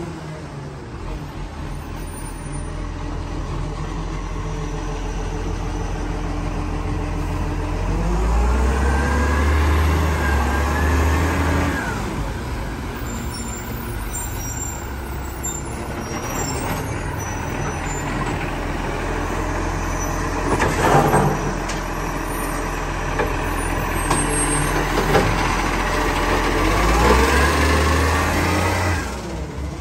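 Side-loader garbage truck's diesel engine running at the kerb, revving up twice as the hydraulic side arm works, once around eight to twelve seconds in and again near the end. A short loud burst of noise comes about two-thirds of the way through.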